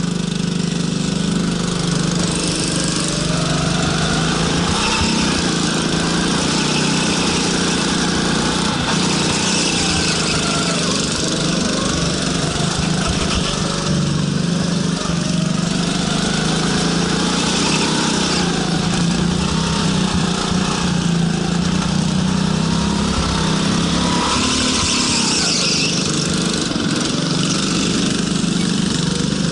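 Go-kart engine running under load, its pitch rising and falling again and again as the throttle opens and closes through the corners.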